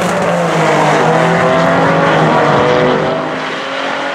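Two Cadillac ATS-Vs' twin-turbo V6 engines at full throttle on a drag-strip pass, the sound fading as they pull away down the track about three seconds in.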